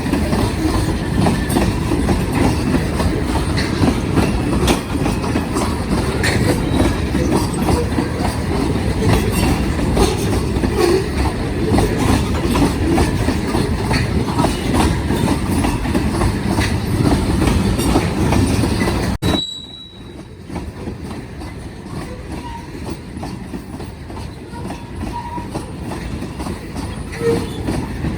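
Freight cars of a BNSF manifest train rolling past, steel wheels clacking over the rail joints with a steady rumble. About two-thirds of the way through the sound drops off abruptly and continues more quietly.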